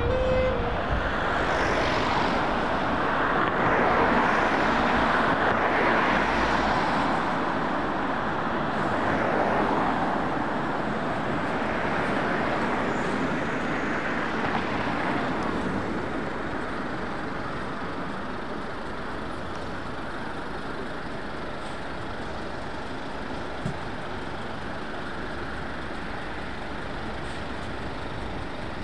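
Road traffic with heavy vehicles passing, louder and swelling in the first half, then settling to a steady traffic noise. A siren cuts off about half a second in, and there is one short knock about two-thirds through.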